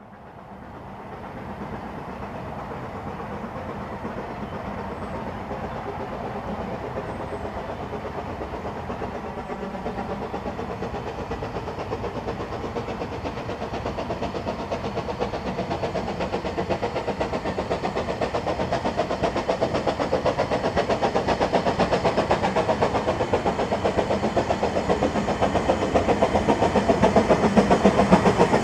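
A double-headed narrow-gauge steam train, a Hunslet saddle tank piloting a Double Fairlie locomotive, is working hard with its carriages. There is a steady hiss of steam at first, then a rapid, even rhythm of exhaust beats from about ten seconds in, growing steadily louder as the train approaches.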